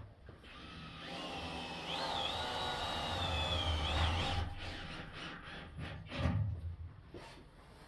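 Small electric drive motor of movable aluminium terrace louvres whining steadily for about three seconds, then stopping, followed by a few clicks and knocks.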